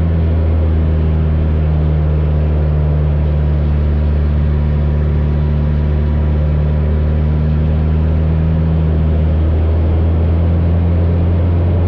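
The 180-horsepower piston engine and propeller of an Acro Sport II aerobatic biplane running steadily during a loop: a loud, even drone with small shifts in pitch.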